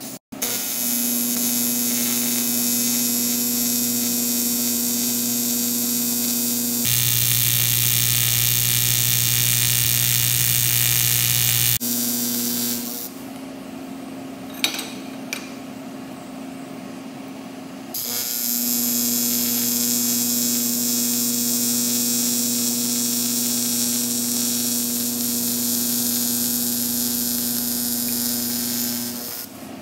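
Welding arc on aluminum, a steady electric buzz with a hiss over it. It runs as two bead passes: the first shifts to a deeper buzz about seven seconds in and stops after about twelve seconds. A quieter gap with a couple of light clicks follows, then the arc strikes again at about eighteen seconds and buzzes steadily until just before the end.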